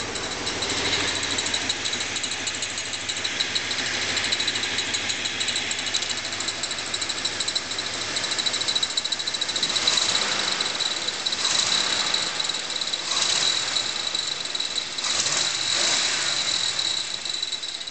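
Small-block Chevy V8 running with a rapid ticking sound, which the owner believes comes from the timing chain cover.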